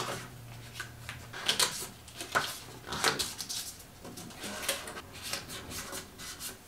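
Paper paint swatch cards being handled and pressed by hand onto a plywood cabinet front: a string of light, irregular rustles and taps.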